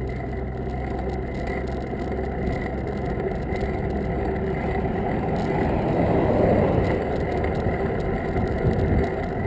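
Motor-vehicle traffic passing close to a bicycle: a steady low engine hum, with road noise swelling to its loudest about six to seven seconds in, then easing.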